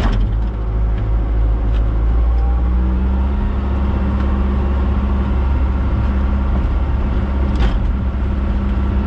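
Diesel engine of a 120-size excavator running steadily under work. A second steady hum joins about two and a half seconds in.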